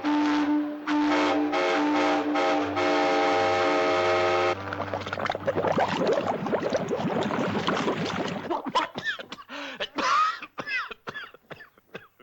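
Sound-effects train whistle sounding a chord of several tones in long blasts, then a dense rushing, hissing noise like a steam train under way, then a scatter of short squeaks and sliding pitched sounds near the end.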